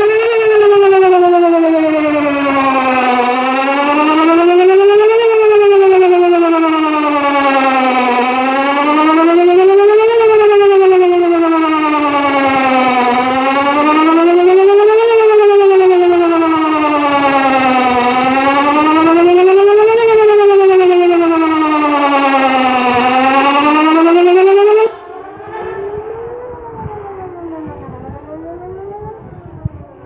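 Pole-mounted electronic tornado warning siren sounding a loud wail during a test of the emergency warning system. The pitch sweeps up and down about every five seconds. About 25 seconds in it cuts off suddenly, and its echo fades away after it.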